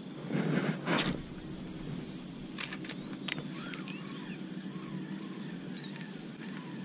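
Outdoor morning ambience beside a pond: scattered short bird chirps over a steady low hum, with two brief louder noises about half a second and one second in.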